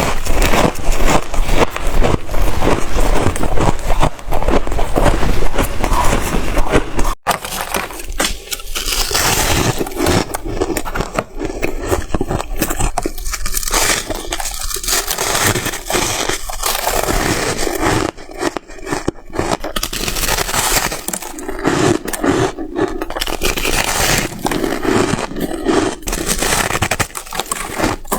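Close-miked crunching of white freezer ice being bitten and chewed, a dense run of crackles and crunches with some scraping. There is an abrupt break about seven seconds in.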